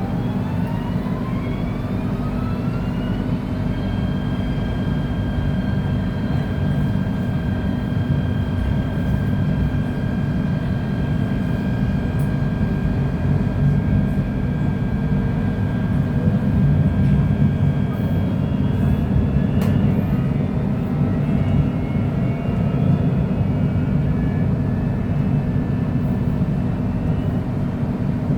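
Electric multiple unit's traction motors whining as the train accelerates, rising in pitch for the first few seconds and then holding one pitch at speed, over the steady low rumble of the running train. About two-thirds of the way through, the whine breaks up into shifting, fainter tones.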